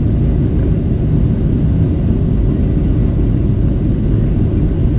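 Steady low roar inside the cabin of a Boeing 737-700: its CFM56 jet engines and the rushing air heard through the fuselage from a seat by the wing.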